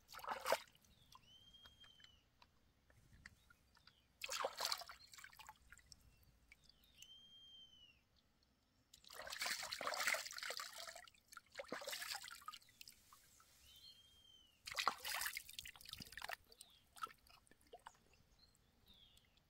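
Water splashing and trickling in several short spells, the longest about two seconds, with a faint short rising-then-falling whistle three times in between.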